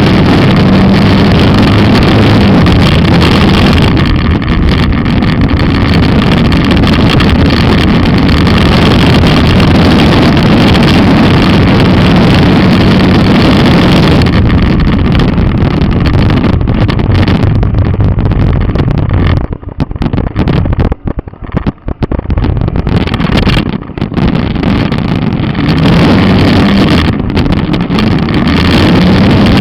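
Skua 250 single-cylinder motorcycle engine running while riding, loud and continuous. A little past the middle the throttle eases off and the sound drops away in uneven dips for a few seconds, then the engine picks up again with its pitch rising near the end.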